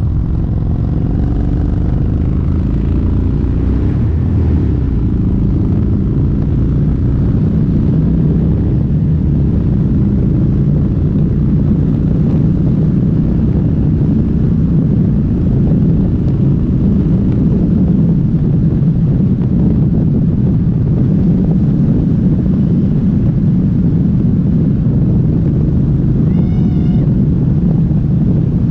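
Kawasaki Vulcan 1700 Vaquero's V-twin, fitted with an aftermarket exhaust and a fresh K&N air filter, running under way at road speed, mixed with wind rush. The engine note shifts in pitch in the first few seconds, then holds steady.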